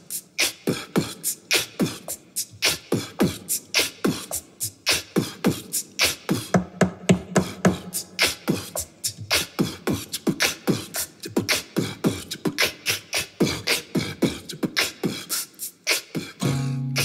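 Vocal beatboxing into a microphone: a fast, steady drum beat of clicks and pops made with the mouth, several strokes a second, in place of a drum. Near the end a low held note comes in under it.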